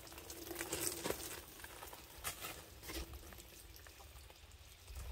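Liquid pouring from a plastic watering can and splashing and pattering onto sheets of cardboard, with a few light knocks.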